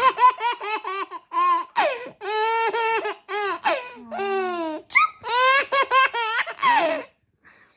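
A baby laughing hard and high-pitched, in runs of quick short 'ha-ha' pulses broken by a few longer held notes, stopping about seven seconds in.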